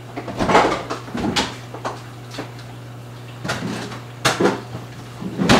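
Refrigerator being opened and items put back on its shelves: a series of separate knocks and clunks, with a steady low hum underneath.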